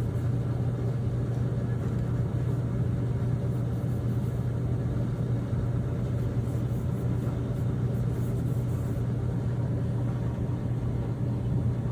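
Steady running of an electric motor, a strong low hum with a rushing noise over it, which switches off abruptly at the very end.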